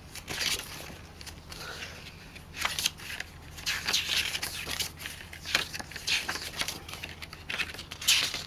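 Paper pages of a CD album's photo booklet being turned by hand: a run of short rustles and flicks at irregular intervals, the loudest near the end.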